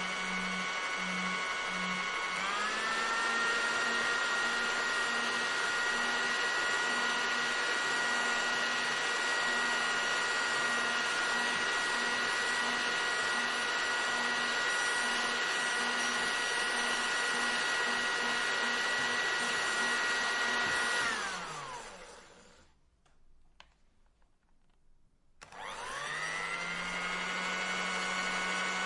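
Electric hair dryer blowing with a steady whine; about two seconds in it switches to a higher speed and the pitch rises. Near the end it is switched off and the whine falls away, and after about three seconds of quiet it is switched back on and winds up to speed.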